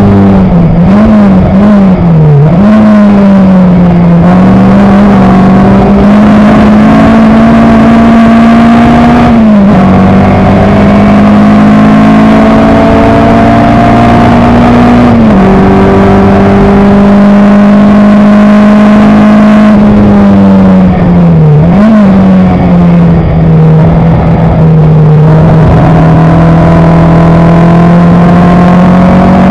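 Coventry Climax FWA four-cylinder engine of an Elva MkIV racer heard on board at racing speed, loud and steady under load. Its pitch climbs slowly over long stretches, drops sharply about 9 s and 15 s in, and wavers briefly near the start and again around 21 s.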